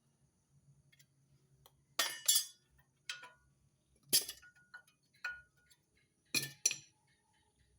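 Metal hand tools and steel car parts clinking and knocking together while a front brake caliper is being unbolted. There are several sharp metallic clinks, some in quick pairs, and a few leave a brief ring.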